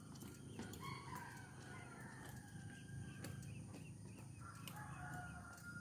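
Faint rooster crowing, one call starting about a second in and another near the end, over a low steady background rumble.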